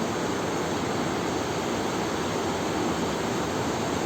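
Fast-flowing river water rushing steadily, an even hiss with no breaks or single events.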